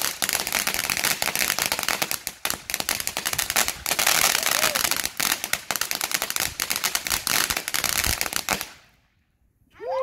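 Ground firework fountain spraying sparks with a dense, rapid crackle that runs on without a break, then dies away about nine seconds in as it burns out.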